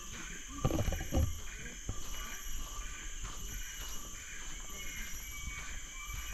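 Rainforest ambience: a steady high insect drone with repeated chirps running through it, and a couple of low thuds about a second in.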